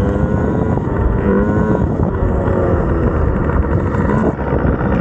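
Small two-stroke Yamaha PW50 dirt bike engines running at speed along a trail, heard from a helmet-mounted camera with wind rumbling heavily on the microphone.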